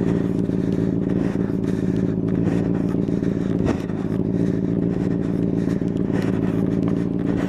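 Motorcycle engine running at steady revs while riding along at speed, with a brief dip about halfway through.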